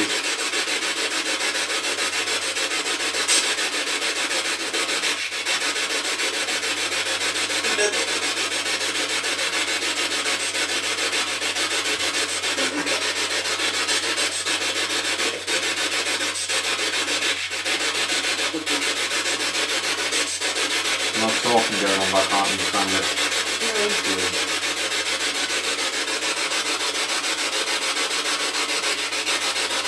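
Spirit box radio sweeping through stations: a loud, steady hiss of static broken by faint clicks. A brief snatch of a voice comes through about 21 seconds in.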